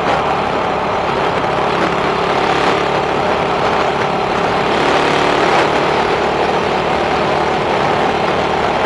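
Suzuki Raider 150 motorcycle running at a steady pace while being ridden, its engine under a steady rush of wind and road noise.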